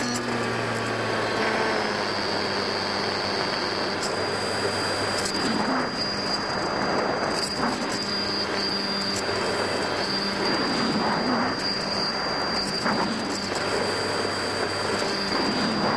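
Brushless electric motor and propeller of a foam RC model plane, heard from its onboard camera in flight: a steady drone with a thin high whine over rushing wind.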